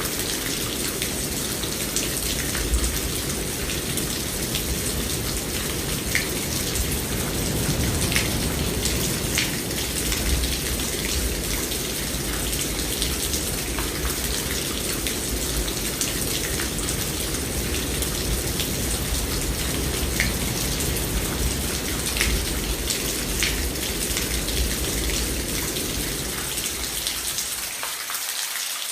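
Steady rain falling, with individual drops ticking sharply here and there. A low rumble underneath fades out near the end.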